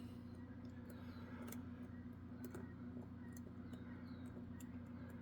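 Lock pick and tension tool working the pins of a pin-tumbler lock during picking: faint, irregular small clicks over a steady low hum.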